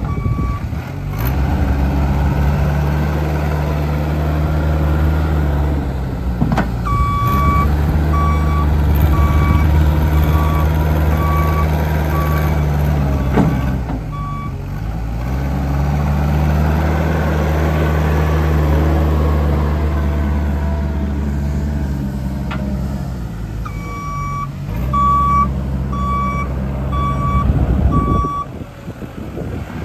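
JCB Midi CX compact backhoe's diesel engine running steadily as the machine shuttles back and forth, its note shifting each time it changes direction. Its reversing alarm beeps at about one and a half beeps a second at the very start, again for about five seconds from about 7 seconds in, and again for about four seconds from about 24 seconds in.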